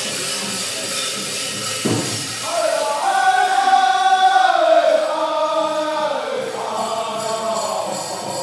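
Powwow drum group singing a grand entry song: voices in a high chant that falls in pitch, with drumbeats and jingles heard at the start and near the end. A single thump about two seconds in.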